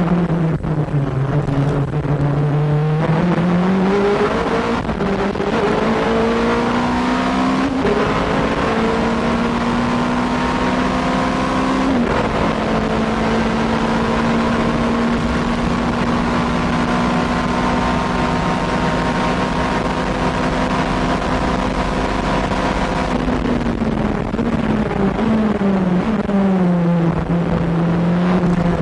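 Nissan R90CK's twin-turbo V8 race engine at full throttle, climbing in pitch through several upshifts. It then holds one high steady note for about ten seconds before falling away as the car slows near the end. The uploader says the engine was over-boosted by a malfunctioning wastegate.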